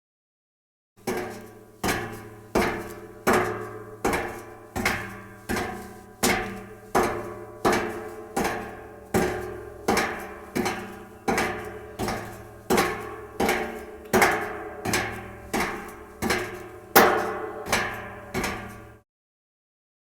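Footsteps on an iron staircase: about two dozen steady steps, roughly three every two seconds, each footfall ringing through the metal treads. They start about a second in and stop a second before the end.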